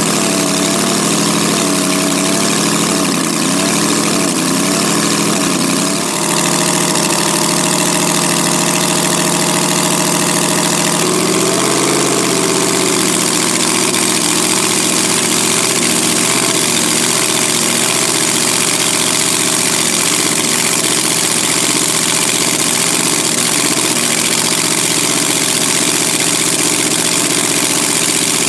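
Racing car engines running at idle, the pitch wavering slightly, then shifting about six seconds in and rising briefly about twelve seconds in before settling to a steady run.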